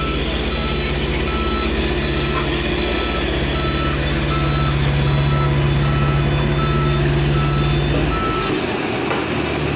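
Reversing alarm of a heavy diesel construction vehicle, beeping about twice a second and stopping near the end, over its steady engine drone.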